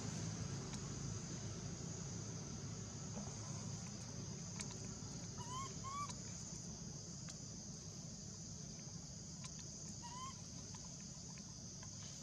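Forest ambience with a steady high-pitched insect drone. Short rising chirps from an animal stand out, a quick pair about halfway through and one more near the end.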